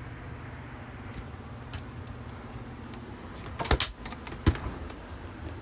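A steady low hum, with a short clatter about three and a half seconds in and a single sharp knock a second later, as things in an RV refrigerator are handled.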